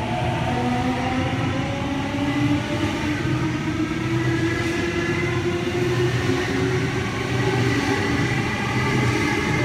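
Sydney Trains Waratah double-deck electric train departing: its traction motors give a whine of several tones that rises slowly in pitch as it picks up speed, over a steady low rumble.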